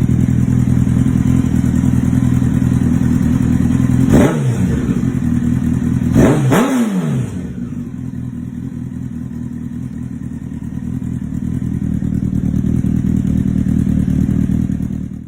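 Honda CBR 1000RR inline-four sportbike engine through a Yoshimura exhaust, idling with a steady beat. It is blipped twice, about four and six seconds in, each rev rising sharply and falling straight back to idle.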